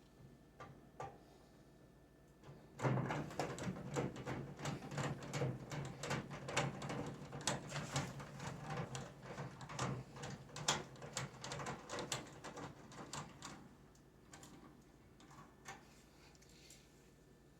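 Dense clicking and rattling of the microwave's metal outer shell being handled and fastened back in place, lasting about ten seconds from about three seconds in, with a few scattered clicks afterwards.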